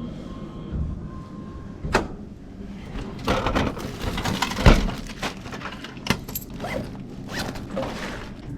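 Handling noise from collecting and packing packaged food: a sharp click about two seconds in, then irregular rustling and clattering with a thud near the middle.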